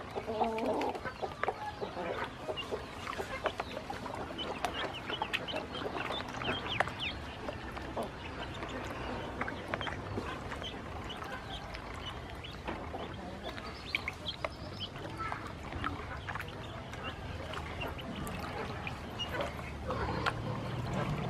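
A flock of ducklings peeping, with many short high calls scattered throughout.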